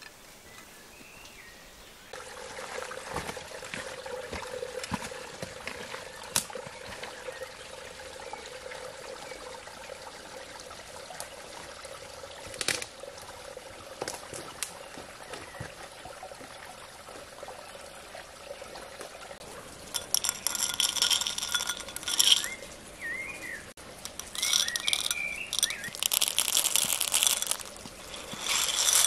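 Water running steadily in a stream, with a few rustles of movement through undergrowth. In the last ten seconds, dry chickpeas rattle and clink against a clay bowl in loud bursts, with short bird chirps between them.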